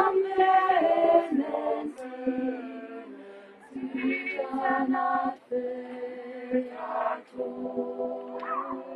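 Choir singing a cappella, phrases of long held chords with short breaks between them.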